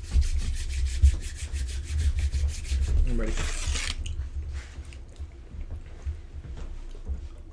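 A pair of hands rubbed briskly together, a fast even run of dry scratchy strokes, brushing off pastry crumbs after eating; a short hiss follows about three seconds in.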